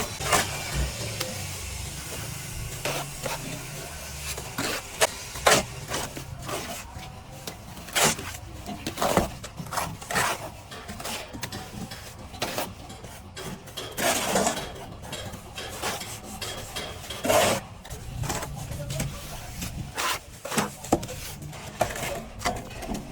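Plastering trowel working plaster: irregular knocks and taps with a few longer scraping strokes, the loudest about two-thirds of the way through.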